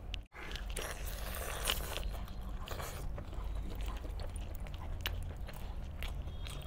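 Wet tearing and squelching of gravy-soaked whole country chicken pulled apart by hand, with close-up chewing: irregular sharp clicks and crackles over a steady low hum. The sound drops out for an instant just after the start.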